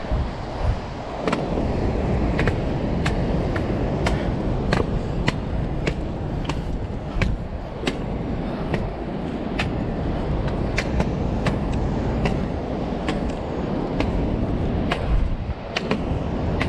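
Wind buffeting the microphone in a steady low rumble, with sharp clicks about twice a second from footsteps on stone steps.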